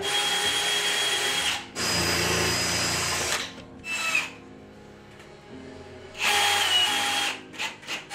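Cordless drill driver whirring as it drives screws into a kitchen cabinet carcass. It runs in several spells of one to two seconds, with a brief burst in the middle and a quieter pause of about two seconds before the last run.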